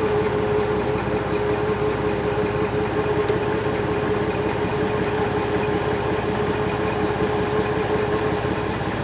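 Tow tug's engine idling steadily, with a steady whine riding on it that stops shortly before the end.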